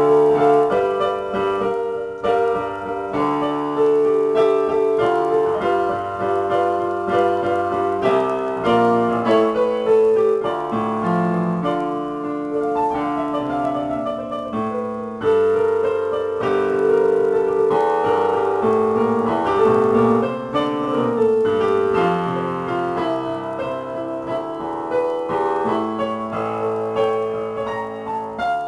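Yamaha digital piano played solo, an improvised piece with a steady flow of notes and chords, mostly in the middle register.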